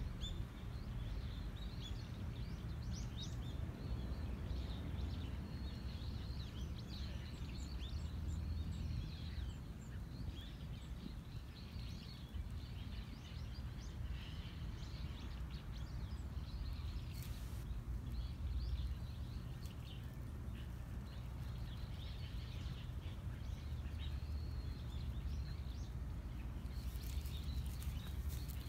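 Small birds chirping and twittering over a steady low outdoor rumble, with brief rustling in dry grass near the end.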